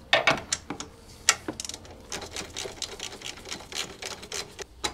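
Hand socket ratchet clicking in quick runs as small bolts are turned, with a few sharper metallic knocks of the tool against the parts.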